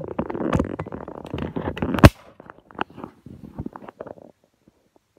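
Close handling noise from items and their packaging being moved about: dense crackling and rustling, a sharp loud knock about two seconds in, then scattered clicks and taps that die out.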